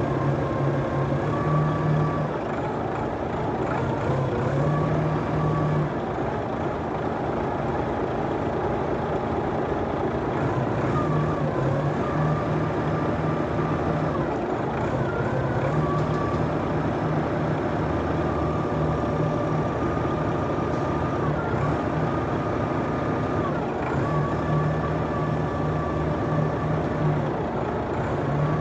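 Heavy forklift and truck machinery running steadily. A higher whine comes in and drops out in spells of a few seconds throughout, with a few brief rises in pitch.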